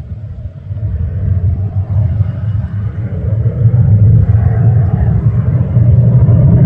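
Distant jet engine of the Spirit of Australia II water speed record boat at speed: a deep, steady rumble that grows louder about three and a half seconds in.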